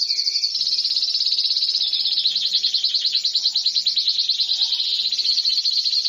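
Canary singing a long, high, fast trill of rapidly repeated notes: an 'isian' phrase imitating the song of the cililin bird.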